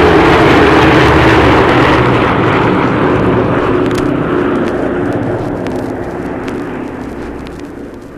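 Aircraft engine noise fading steadily as the plane moves away, heard from a vinyl LP with clicks and pops from the record's surface.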